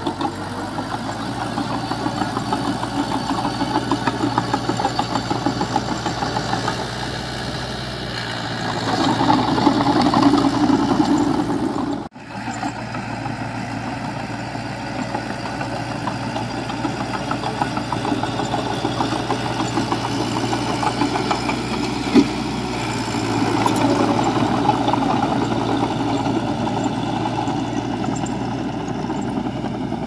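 Heavy diesel engine of a bulldozer running steadily, swelling louder twice as it works, with a brief drop-out about twelve seconds in and a single sharp clank a little after twenty seconds.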